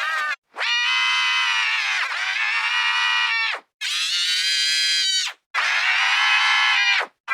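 A cartoon character's scream, pitch-corrected into steady musical notes in a major key: three long held screams, each one to three seconds, with short breaks between them.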